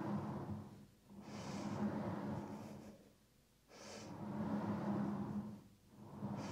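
Merrithew V2 Max Plus reformer carriage rolling in and out along its rails against the springs, one stroke about every two seconds with a short pause between strokes and a steady low hum while it moves. Short breaths come at the start of strokes.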